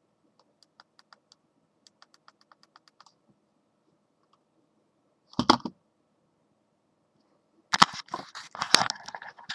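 Small plastic and metal clicks and clatter from handling a compact digital camera and its parts. A run of faint quick ticks comes first, then a single sharp clack about halfway, then a busy stretch of clattering near the end.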